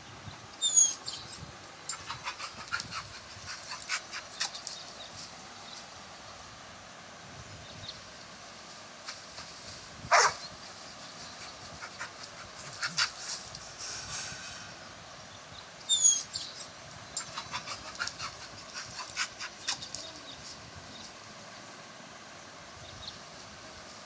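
Labrador retriever panting in quick breaths, with a few short, sharp, louder sounds about a second, ten seconds and sixteen seconds in.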